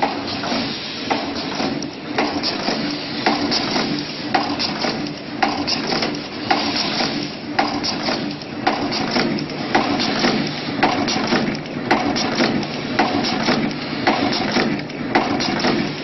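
Automatic double-end wire crimping machine running, its crimping heads clacking in a steady rhythm of about one stroke a second over a continuous mechanical hum and hiss.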